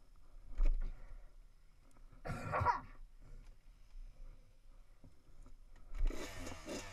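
A low thump about half a second in, then a person coughing about two seconds in. Near the end a dirt bike engine starts up and revs.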